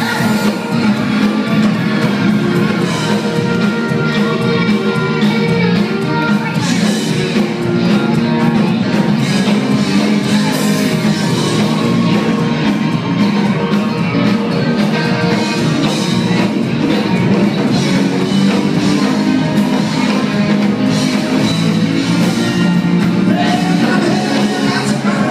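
Live band playing a rock song with electric guitars, drums and singing, heard from the crowd in a club room.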